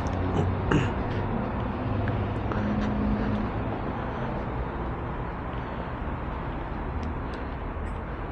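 Honda CBR650R's inline-four engine running at low revs with steady road and wind noise, a few faint clicks over it.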